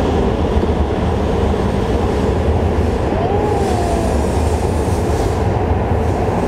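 Shinkansen train moving along the station platform: a steady rumble and rushing noise.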